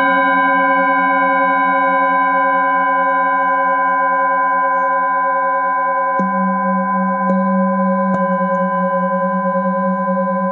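Metal singing bowls ringing, struck with a mallet: several long overlapping tones sustain, the lowest one slowly pulsing. A fresh strike a little past the middle changes the low tone, and two lighter taps follow within the next two seconds.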